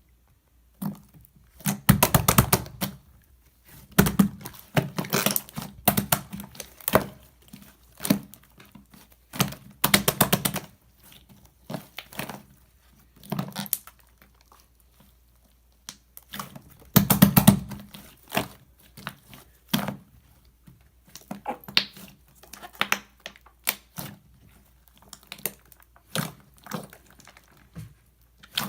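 Hands squishing, pressing and stretching slime, giving clusters of quick sticky clicks and pops with short quiet gaps between them.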